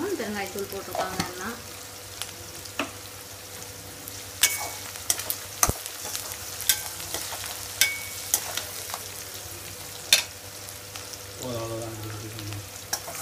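Shallots, dried red chillies and leaves sizzling in hot oil in a stainless-steel kadai, with a steady hiss. A steel spatula clinks and scrapes against the pan now and then.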